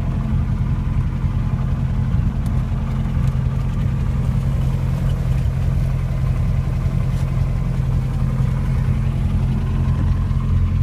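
Light single-engine airplane's piston engine and propeller droning steadily, heard from inside the cabin while the plane moves along the airport pavement.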